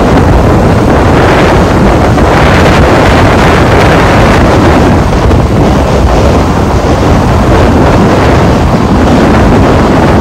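Loud, steady wind buffeting the microphone of a vehicle moving at highway speed, over a rushing road noise.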